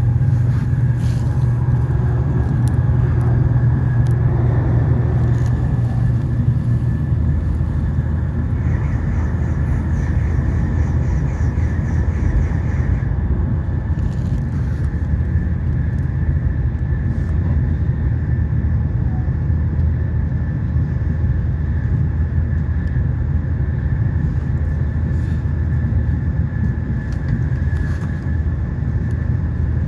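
Inside the passenger cabin of a JR Central N700S Shinkansen train running at speed: a steady low rumble from the running gear, with a low hum that drops in pitch about seven seconds in and a thin steady high tone. A few faint clicks sound now and then.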